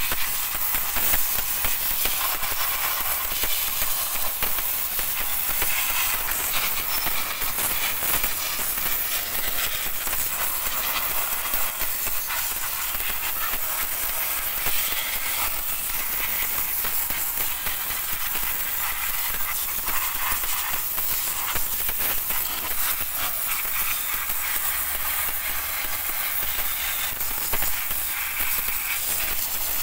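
Pressure washer jet hissing steadily as it blasts water onto a drum brake's shoes, wheel cylinder and hub, with water splashing off the parts.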